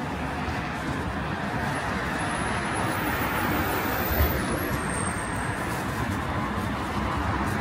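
Steady road traffic noise of passing cars, with one brief low thump a little past halfway through.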